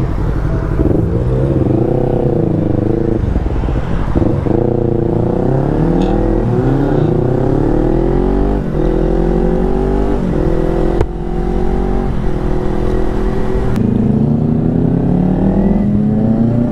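Motorcycle engine accelerating away and up through the gears. Its pitch climbs, then drops at each of several gear changes.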